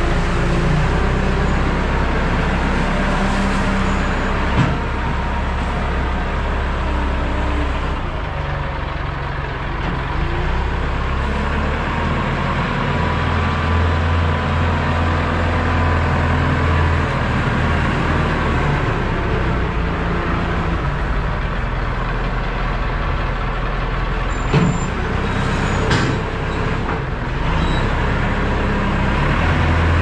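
Fermec loader's diesel engine running steadily, its pitch rising and falling with the throttle as the loader carries and dumps corn-stalk bedding, with a few sharp knocks from the loader and bucket.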